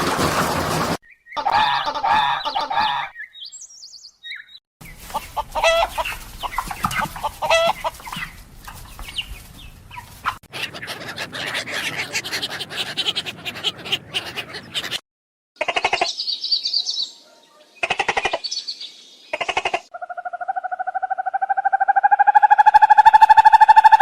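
A run of short clips of bird calls, chicken-like clucking among them. Near the end comes one long drawn-out call that rises slowly in pitch.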